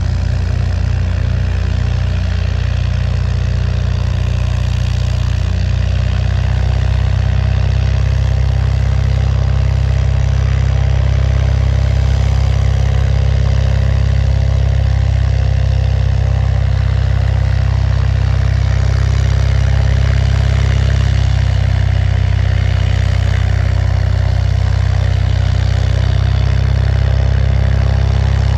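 An engine running steadily at idle, loud and close, with a deep low hum that swells slightly over the first few seconds and then holds.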